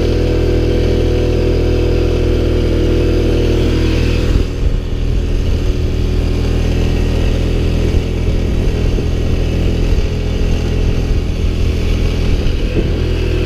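ATV (quad) engine running at a steady pitch, with a slight change in tone about four seconds in; the sound cuts off abruptly at the very end.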